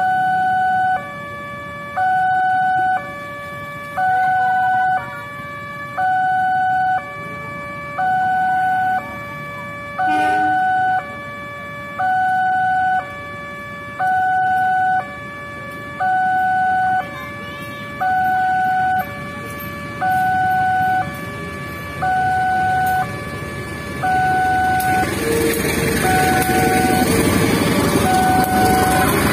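Railway level-crossing warning alarm sounding its two-tone electronic signal, a higher and a lower tone alternating about once a second, warning of an approaching train. In the last few seconds the diesel locomotive's engine and wheel noise swell up under the alarm as the train reaches the crossing.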